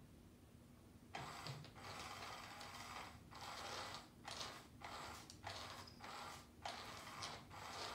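Small geared motor of a battery-powered cat toy under a round fabric cover, starting about a second in and whirring in short spurts with brief breaks every half second or so.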